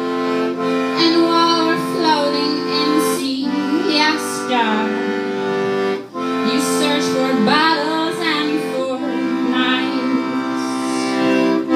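Piano accordion playing sustained chords that change every few seconds, with a woman singing over them. The chord breaks off briefly about six seconds in.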